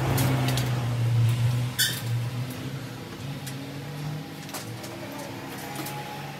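A steady low hum, loudest for the first two seconds and then fading, with scattered clicks and knocks and one brief high chirp about two seconds in.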